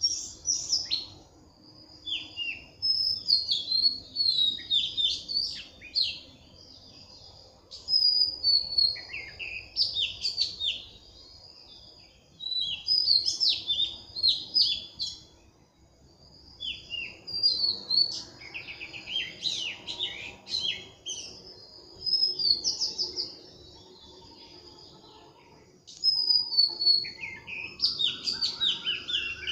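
Songbirds singing: phrases of rapid, high, sweeping chirps a few seconds long, repeated after short pauses. A short rising whistle comes near the end.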